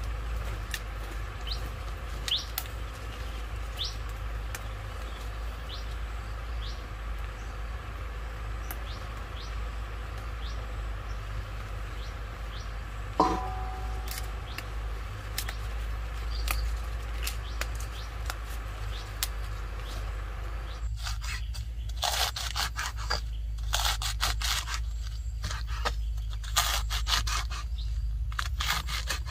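Repeated crinkling and crackling from about two-thirds of the way in, as something dry is handled. Before it, faint bird chirps over a steady low hum, and a single metallic clink about halfway.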